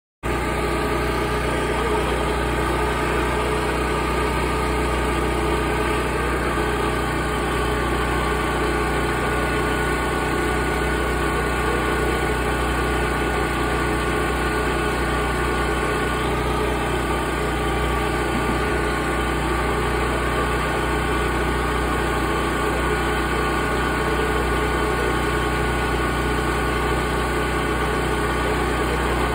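A steady, unchanging engine drone with no revving and no cars passing by.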